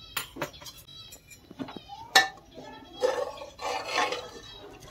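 Steel spoon clinking and scraping against the inside of a pressure cooker while stirring mutton curry. Several sharp clinks, the loudest about two seconds in, with scraping strokes around three to four seconds in.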